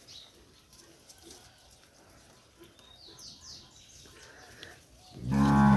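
A few faint bird chirps, then about five seconds in a cow moos loudly, one long low call.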